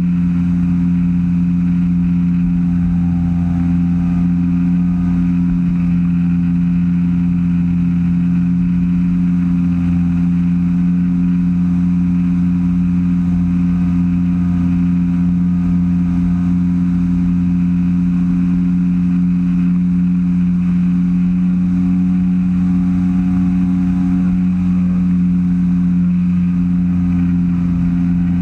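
Engine and pusher propeller of a weight-shift microlight trike running steadily at cruise in flight, a constant even-pitched drone with no change in power.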